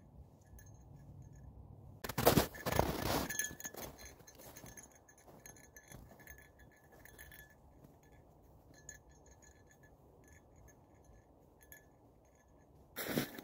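A loud rustling burst on the phone's microphone for about a second and a half, a couple of seconds in, as it is handled, then faint footsteps crunching in snow with light ticks; another rustling burst begins near the end.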